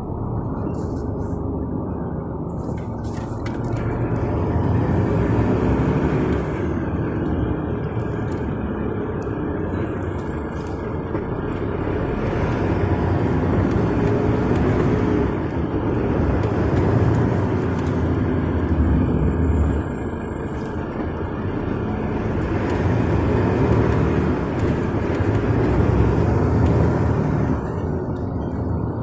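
Car interior noise while driving: a steady low road and engine rumble that swells and eases every few seconds.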